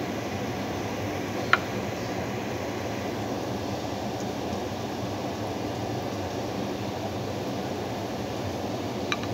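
Kitchen range hood fan running steadily over the grill, with two sharp clicks, one about a second and a half in and one near the end.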